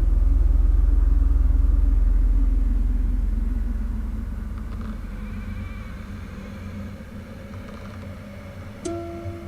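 A deep low rumble that slowly fades away over several seconds, then a single ringing, pitched note struck near the end.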